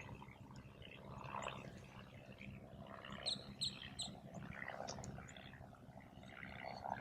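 Wild birds chirping, with a quick run of three sharp high notes about three seconds in.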